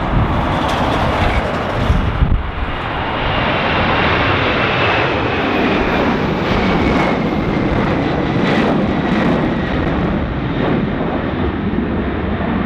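Jet engines of a United Airlines twin-engine airliner at climb power as it pulls away overhead, a loud steady rush with a high whine that slowly falls in pitch. Gusty wind buffets the microphone underneath.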